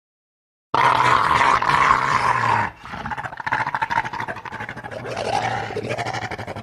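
Italian wolf growling in two long, rough stretches. The growl starts suddenly about a second in, breaks off briefly partway through, then carries on more quietly.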